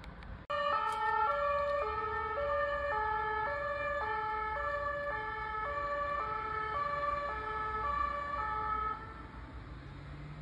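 French police car's two-tone siren, switched on suddenly and alternating between a low and a high note about every half second. It sounds for roughly eight seconds, then cuts off, over a low traffic rumble.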